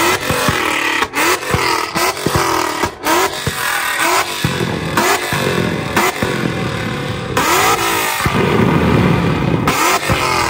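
Ford Mustang engine revved in quick blips over and over, each rev broken by sharp bangs and crackles from an exhaust set up to shoot flames. Near the end comes one longer, held rev.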